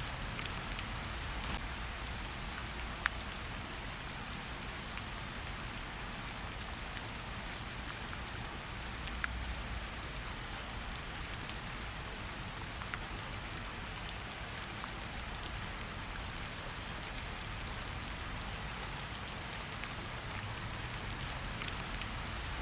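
Steady heavy rain falling on a surface, with many individual drops ticking through it and a few louder drop hits, one about 3 s in and another about 9 s in.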